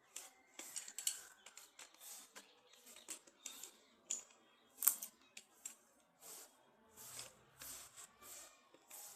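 Hands handling packaging: a string of short, irregular rustles and scrapes, two or three a second, with one sharp click about five seconds in.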